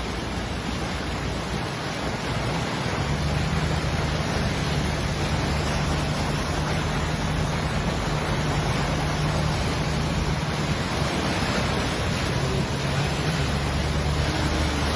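Steady rushing noise of a heavy downpour and flowing water, with a low steady hum underneath.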